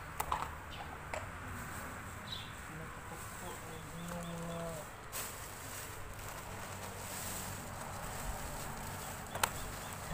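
A few sharp clicks of metal hydraulic-cylinder parts and seal rings being handled, about three, over a steady background of insects and birds.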